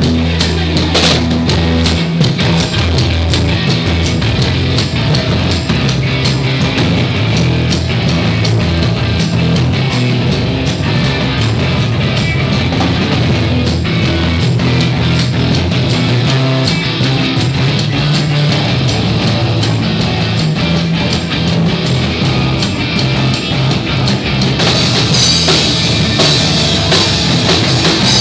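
Live rock band playing: electric guitar, bass guitar and a drum kit, loud and without a break. The cymbals get brighter near the end.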